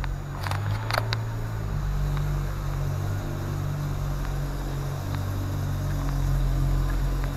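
BMW M6 driving slowly, heard from inside the cabin: a steady low engine and road rumble. Two brief sharp sounds stand out about half a second and a second in.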